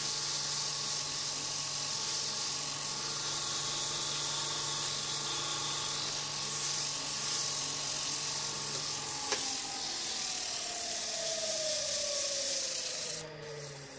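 180-grit sandpaper held by hand against the face of a wooden bowl spinning on a lathe: a steady, loud hiss over the lathe's hum. About nine seconds in there is a click, and the lathe's tone then falls steadily in pitch as it slows. The sanding hiss stops just before the end.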